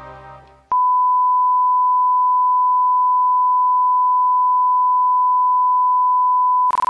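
Broadcast line-up test tone that accompanies colour bars: one steady, loud, unwavering pure tone that starts suddenly about three quarters of a second in, as closing music fades out. It breaks up into a short crackle near the end.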